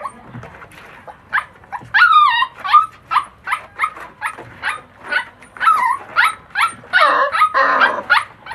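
Puppies yipping and barking in a quick run of short high calls, about three a second, with a longer, louder cluster of calls near the end.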